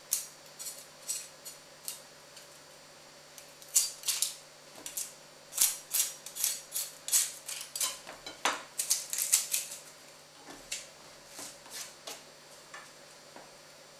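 Santoku knife slicing an onion and lifting off its papery outer skin on a wooden cutting board: a run of short, crisp, irregular cuts and taps, thickest in the middle stretch and fewer and fainter near the end.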